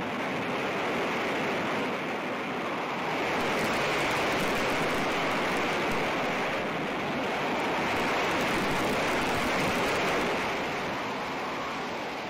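Heavy typhoon seas: a steady rushing of waves and spray breaking over a warship's deck, swelling louder a few seconds in and easing off near the end.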